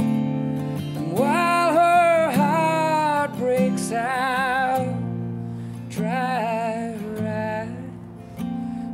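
A man singing long, wavering held notes over strummed acoustic guitar chords.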